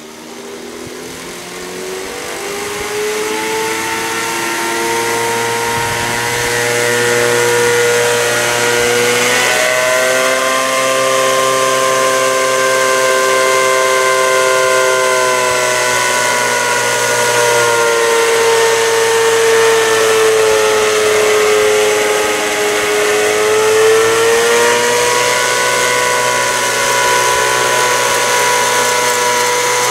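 Electric motor whine from a garden-railway train pushing a rotary snowplough through icy snow. It grows louder over the first several seconds as the train approaches, then holds steady, its pitch rising and sagging slowly as it goes.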